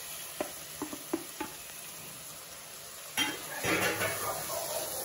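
Chopped tomatoes tipped into a pan of frying onions, with four light clinks of metal against the pan in the first second and a half. From about three seconds in, a spatula scrapes and stirs through the pan as it sizzles.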